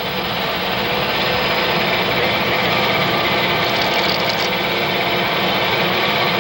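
Metal lathe running while a twist drill bores into a stainless steel rod under coolant: a steady mechanical noise, with a brief higher hiss about four seconds in.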